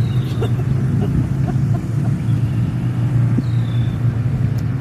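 Steady low engine drone, a motor running at a constant speed.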